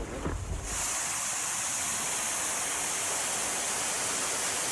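Steady rush of water pouring over a small dam spillway, cutting in abruptly under a second in.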